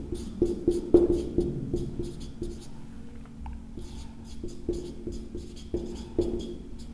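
Handwriting: a quick, irregular series of short strokes as table headings are written out, over a steady low hum.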